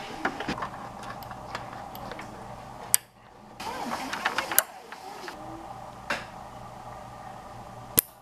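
Cable plugs (HDMI and Ethernet connectors) handled and pushed into their sockets: small plastic clicks and rubbing over a steady background hum, with a few sharp clicks.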